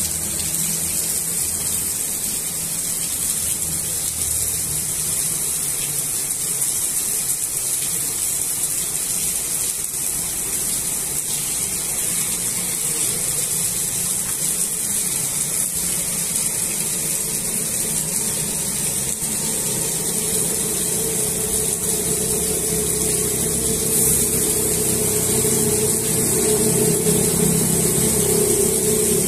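Steady rain falling on a flooded street and puddles. A vehicle engine hum grows louder over the last ten seconds or so as a motor rickshaw goes by.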